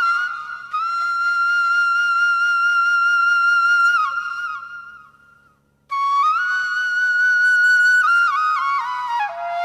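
Background music: a solo flute melody with long held notes, fading out about four seconds in and coming back after a short silence about six seconds in.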